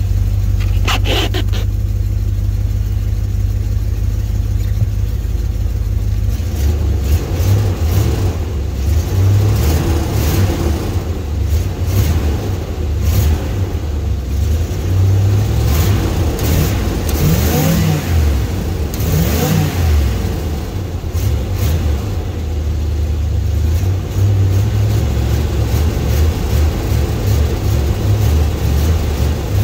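1986 Chevy G30 motorhome engine running, revved unevenly with the accelerator pedal from about six seconds in. There are two clear rises and falls in pitch a little past halfway.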